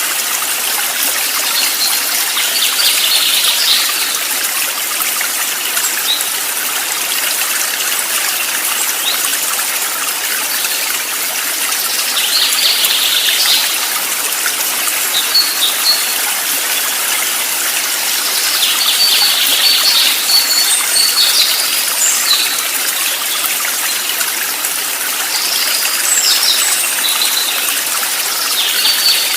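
Water running in a stream with a steady rush, with short higher-pitched sounds rising above it every five to seven seconds.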